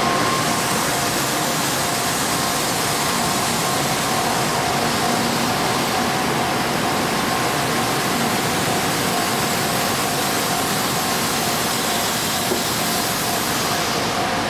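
N700A Shinkansen trainset passing over a level crossing: steady, even running noise with two faint steady tones.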